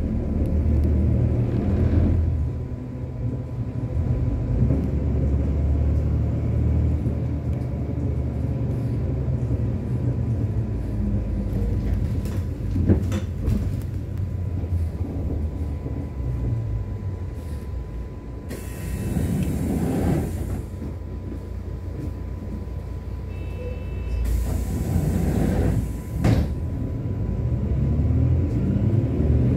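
City bus heard from inside the cabin: steady engine and road rumble while driving, with a sharp knock about halfway through. Later come two loud bursts of air hissing, each about two seconds long, from the bus's air system.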